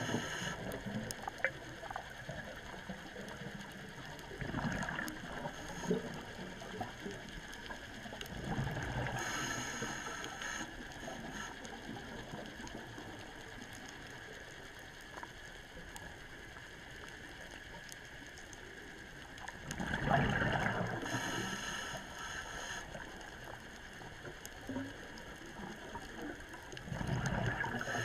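Scuba regulator breathing underwater: a few breaths several seconds apart, each a gurgling rush of exhaled bubbles and a hiss of inhalation, with faint scattered clicks between them.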